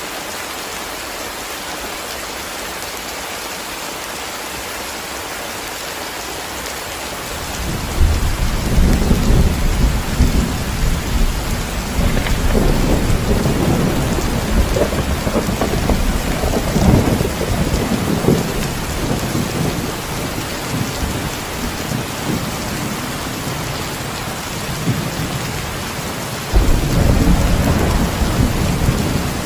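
Heavy rain falling steadily, with thunder breaking in about a quarter of the way in and rumbling in waves for over ten seconds before fading. A second roll of thunder starts suddenly near the end.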